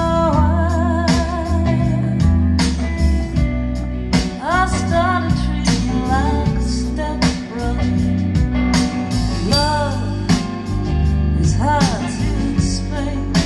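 Recorded song played through Linn Nexus loudspeakers, bi-amped by a Linn Majik DSM and Majik 2100 power amplifier: a singer holding notes with vibrato over guitar, drums and a strong bass line.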